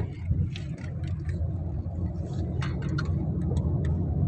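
Car engine and road noise heard from inside the cabin while driving, a steady low rumble with a few light clicks and rattles.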